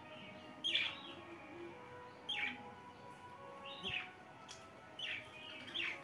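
Budgerigars chirping: about five short, sharp calls, each a quick downward sweep in pitch, spaced roughly a second apart over a faint steady background.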